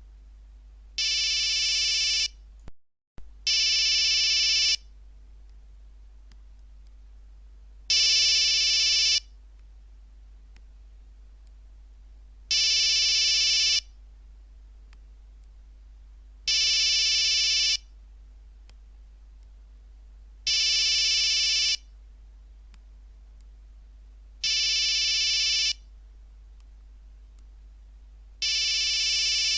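Nokia 1100 monophonic ringtone playing. After a brief break about three seconds in, a buzzy electronic beep figure about a second long repeats every four seconds.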